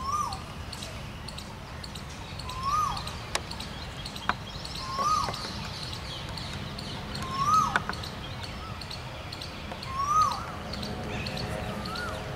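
A bird calling over and over: a single note that rises and then drops, repeated about every two and a half seconds, over a steady low background rumble. Two sharp clicks come in between the calls near the middle.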